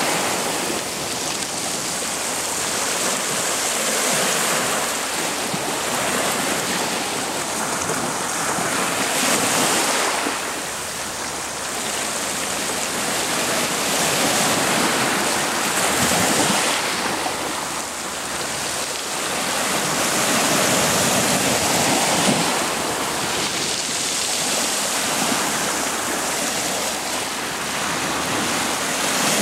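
Waves washing in, with wind: a steady rushing that swells and eases every few seconds.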